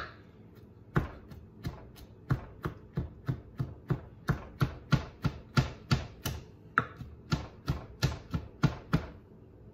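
Kitchen knife chopping diced ham finely on a plastic cutting board: sharp, regular knife strikes, about three a second, starting about a second in and stopping near the end.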